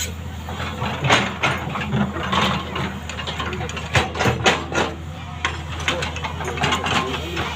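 JCB backhoe loader's diesel engine running steadily at low revs, with several sharp knocks about a second in and around four seconds in.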